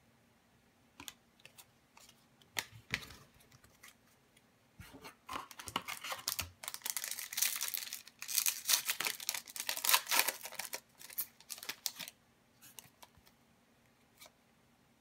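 A hockey card pack's foil wrapper being torn open and crinkled for several seconds, about five to twelve seconds in, after a few light clicks of cards being handled; a few more soft card clicks follow near the end.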